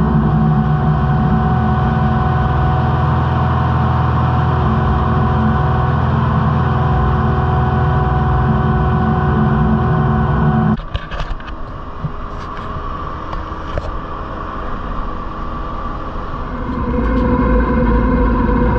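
Kubota SVL75 track loader's diesel engine running steadily at high revs, then dropping abruptly to a lower, quieter speed about eleven seconds in, with a few knocks, before revving back up near the end.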